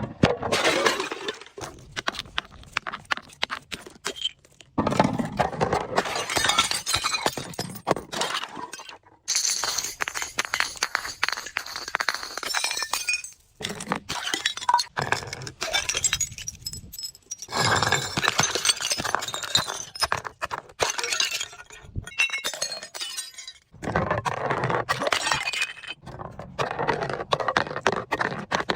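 Glass being crushed and broken: dense crunching and crackling with clinks of shards, in several bursts of a few seconds each with short pauses between them.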